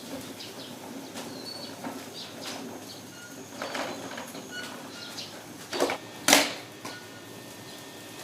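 Two sharp knocks, close together a little before and after six seconds in, over a steady background with short high bird chirps scattered through.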